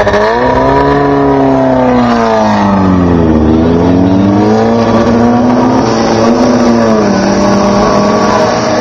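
Off-road race vehicle's engine revving loudly. Its pitch rises and falls several times, then drops and holds steadier near the end.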